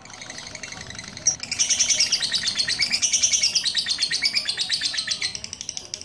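Lovebird singing a fast, continuous chattering run of high notes, louder from about a second in until near the end. This is the long unbroken song ('durasi') that lovebird keepers prize.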